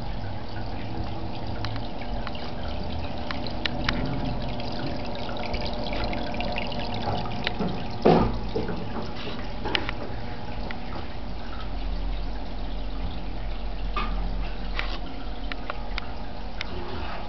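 Aquarium filter returning water into the tank: steady trickling and splashing with scattered small drips. A single louder thump comes about eight seconds in.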